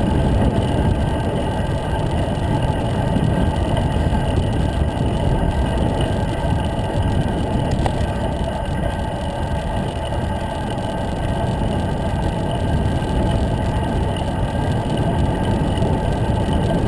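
Wind rumbling steadily over the microphone of a handlebar-mounted camera on a moving road bike.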